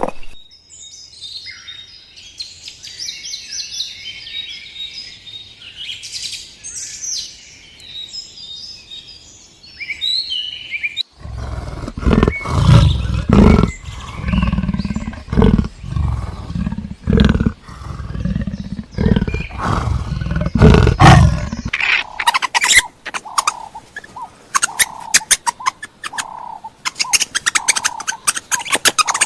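Small birds chirping for about eleven seconds, then a big cat roaring and growling in a run of loud, deep, repeated bursts for about ten seconds. After that come rapid clicks and short repeated calls.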